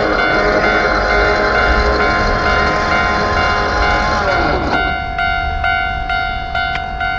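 A Keio Line train running over a Japanese level crossing, its rumble mixed with the crossing's electronic warning bell. A little before five seconds in, the train noise falls away with a drop in pitch, leaving the bell ringing on its own at about three strikes a second.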